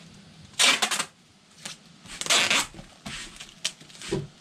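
Adhesive tape being pulled off the roll in short rasping rips: two long pulls, about half a second in and around two and a half seconds, then a few shorter ones near the end.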